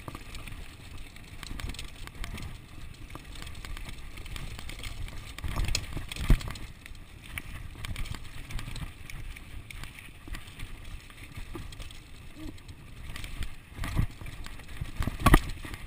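Ellsworth Evolve mountain bike running fast down a dirt trail: a steady rumble of tyres on the ground and rattle from the bike. Sharp knocks come as it hits bumps, the loudest about six seconds in and two more near the end.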